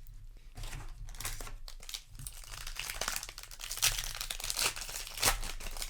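Foil wrapper of a Magic: The Gathering play booster pack crinkling and crackling as it is handled, with sharper crackles in the later half.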